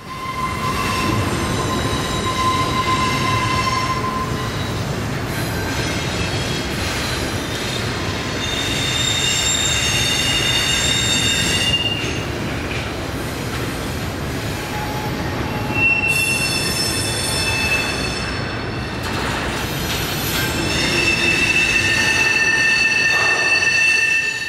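Train wheels squealing against the rails: several high, thin squeal tones that come and go, over a continuous low rumble of rolling railroad cars.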